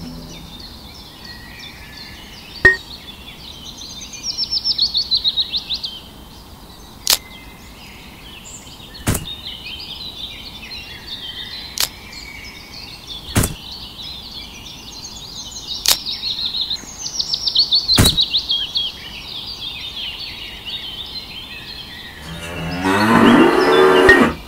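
Small birds chirping and trilling, with several sharp clicks along the way, then a cow mooing loudly for about two seconds near the end.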